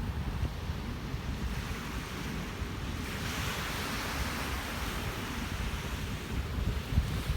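Ocean surf breaking and washing on a beach. One wash swells about three seconds in, over a low, gusty wind rumble on the microphone.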